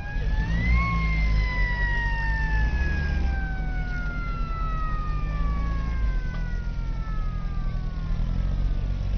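A mechanical siren winds up quickly to a high wail, then slowly spins down, its pitch falling steadily for about eight seconds. A low engine rumble runs underneath.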